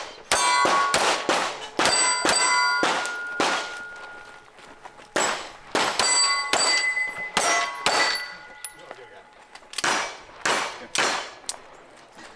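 Rapid pistol shots fired at steel targets, the hit plates clanging and ringing after many of the shots. The shots come in quick strings of several, with short pauses between strings.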